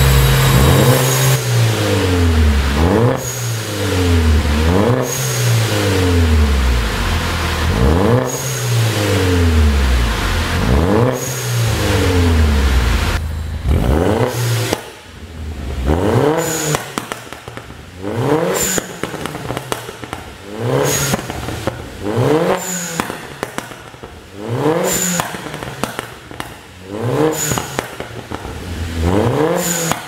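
Turbocharged 1.6-litre four-cylinder of a 2013 Mini Cooper JCW (R56), running a tuned ECU, downpipe and pop-and-crackle map, blipped repeatedly on the dyno. Revs rise and fall every two to three seconds, with sharp pops and crackles from the exhaust between the revs, quicker and choppier in the second half.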